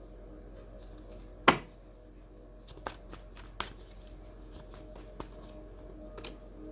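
Tarot cards being handled on a table: one sharp slap about a second and a half in, then several lighter taps and flicks of cards.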